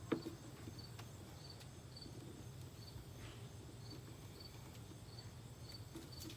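Crickets chirping faintly at a steady pace, about two chirps a second, with a sharp click just after the start.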